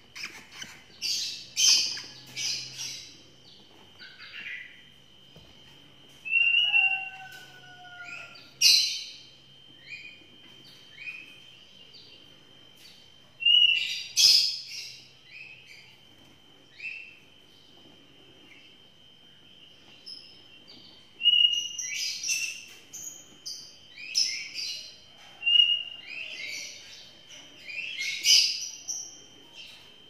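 Young lovebirds chirping: many short, high chirps with louder, sharp squawking calls every few seconds.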